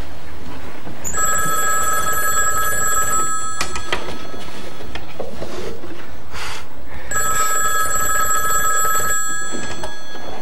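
Desk telephone ringing twice, each ring about two seconds long with a pause of a few seconds between. A couple of knocks and a brief rustle fall between the rings.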